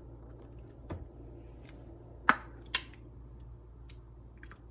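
Kitchenware clinking and knocking: four or so sharp, separate hits, the loudest about halfway through, over a faint steady hum.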